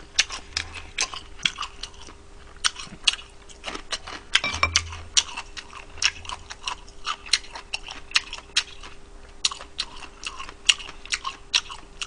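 A person chewing and biting fried chicken close to the microphone: a run of irregular wet clicks and smacks, with a faint steady hum underneath.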